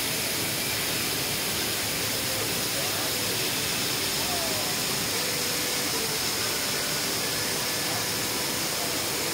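Steady rushing of a waterfall: an even, unbroken wash of falling-water noise.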